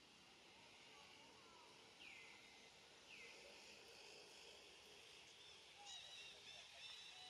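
Faint forest ambience: a steady high hiss, with two falling bird calls about two and three seconds in and quick bird chirps near the end.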